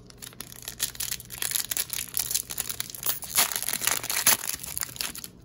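Foil wrapper of a 2019-20 Upper Deck hockey card pack crinkling and tearing as it is ripped open by hand: a fast, dense run of crackles, loudest between about three and four and a half seconds in.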